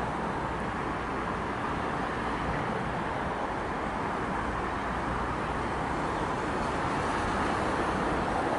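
Steady, even rumble of distant traffic and a departing suburban electric train running away up the line, growing a little louder near the end.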